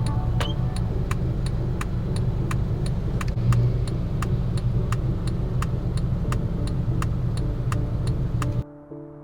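Steady low rumble of a vehicle with a regular sharp ticking about three times a second; it cuts off abruptly near the end.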